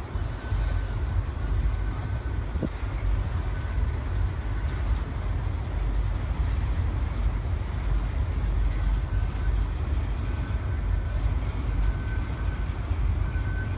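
CSX intermodal freight train's double-stack container well cars rolling past, a steady rumble of wheels on rail. A faint high squeal comes and goes several times.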